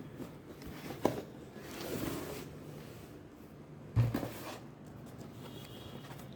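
A blender's packaging being handled: a knock about a second in, a brief rustle, then a second, louder knock about four seconds in.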